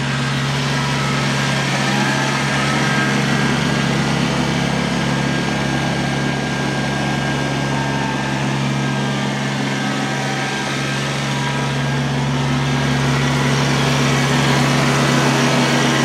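Kubota BX23S compact tractor's three-cylinder diesel engine running steadily as the tractor drives past, getting a little louder near the end as it comes close.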